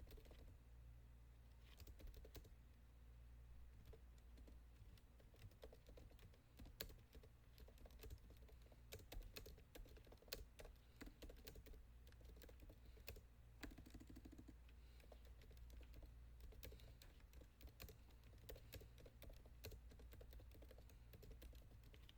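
Faint, irregular light clicks in quick runs over a low steady hum.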